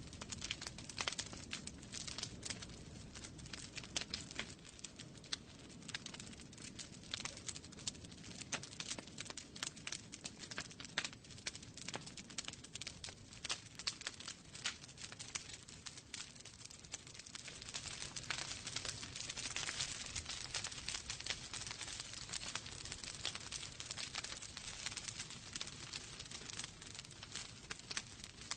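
Wood fire burning in a fireplace, crackling with many sharp pops and snaps over a steady hiss. The hiss grows brighter a little past halfway through.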